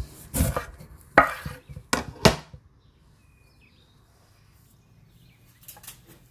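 Knife chopping on a cutting board: four sharp strokes in the first two and a half seconds, then a couple of faint clicks near the end.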